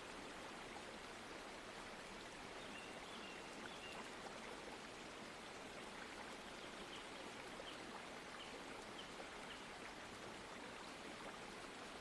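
Steady, faint rush of falling water from Katiki waterfall, a plunge of about 100 feet.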